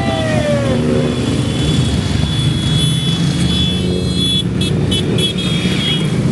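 A procession of motorcycles riding past one after another, their engines running in a steady, dense rumble. One engine note falls in pitch in the first second as a bike goes by, and a thin high whine comes and goes in the second half.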